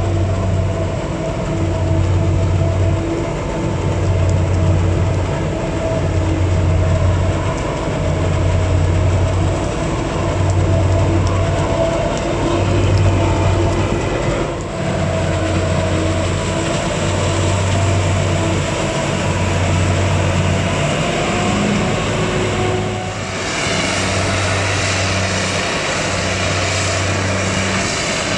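Heavy forage-harvesting machinery running steadily: the engine drone of a Claas Jaguar self-propelled forage harvester chopping maize, with a steady mechanical whine over it and a low hum that pulses about every second and a half. The mix of sound changes about three-quarters of the way through.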